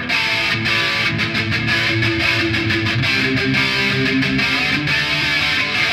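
Electric guitar music, heavy metal style, starting suddenly at full volume and running on steadily.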